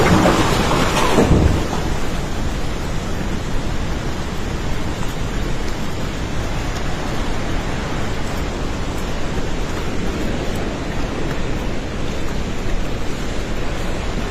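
Flooded river in full spate: a steady, heavy rush of floodwater, loudest for the first second and a half.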